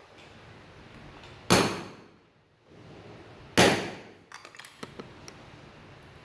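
Two hammer blows on metal, about two seconds apart, each ringing briefly as it dies away, driving a bearing into a brush cutter's gear head housing. A few light metallic clicks follow.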